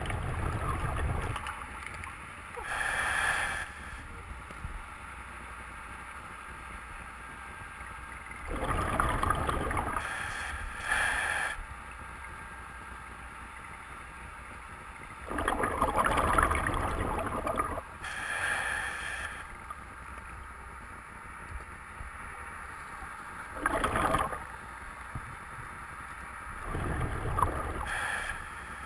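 Scuba diver breathing through a regulator underwater: short hisses of inhalation alternate with longer bubbling bursts of exhaust, about four breaths spaced several seconds apart.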